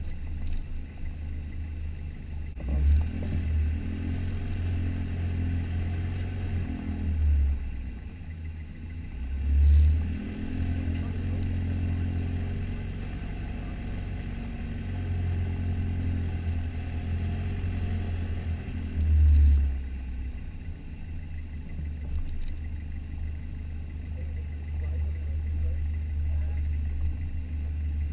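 A 4WD's engine running at low speed over a dirt track, a steady low rumble with a little clatter, heard from a camera mounted on the bonnet. Four brief, louder low swells stand out, about three, seven, ten and nineteen seconds in.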